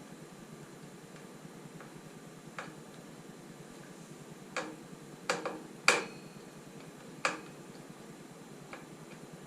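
Scattered sharp clicks and knocks of hand tools and headlight mounting parts being handled, about seven in all and bunched together in the middle, the loudest about six seconds in, over a steady low hum.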